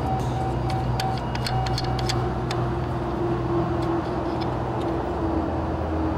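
Light metallic clicks from handling the parts of an opened ignition distributor, several in the first two and a half seconds, over a steady low mechanical hum.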